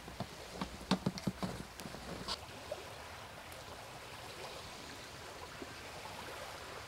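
Campfire crackling with sharp pops for the first two seconds or so, then a soft steady wash of small lake waves on the shore.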